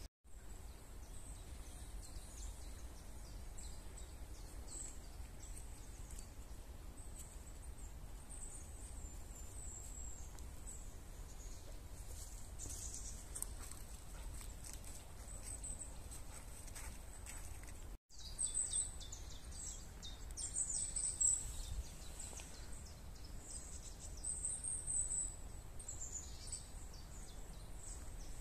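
Woodland ambience: small songbirds giving short, high-pitched chirps and trills, more often in the second half, over a low steady rumble. The sound drops out for a moment at the very start and again about 18 seconds in.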